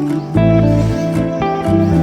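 Background music led by a plucked guitar, with notes changing in a steady rhythm.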